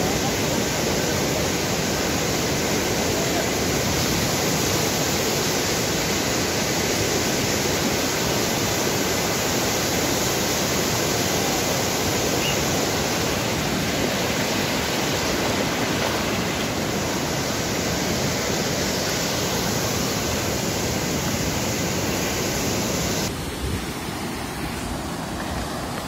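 Muddy floodwater torrent rushing over rocks and stones: a loud, steady rush of water. About three quarters of the way through it cuts off abruptly to a quieter, different background.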